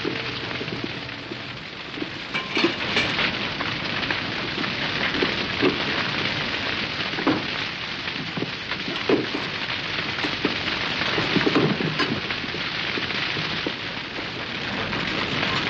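Large fire in a wooden structure burning with a steady hissing crackle and scattered louder pops and cracks.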